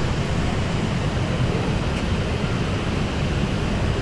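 Steady rushing background noise with a heavy, fluttering low rumble and no distinct events.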